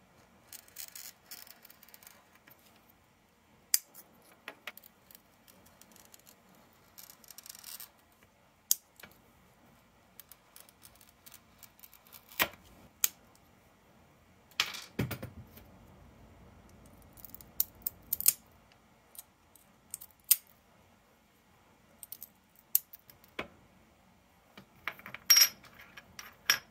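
A wheeled glass cutter scoring stained glass with a fine hiss, twice, then sharp clicks and clinks of the cut glass pieces knocking on a plastic waffle cutting grid, loudest near the end.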